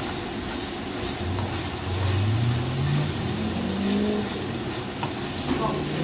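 Minced meat sizzling in a hot frying pan as a spatula stirs it. From about a second in, a low hum rises in pitch over about three seconds, then fades.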